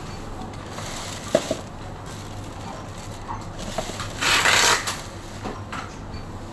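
Packaging being handled: a couple of light knocks about a second in, then a louder half-second crinkle or crumple of the wrapping about four seconds in.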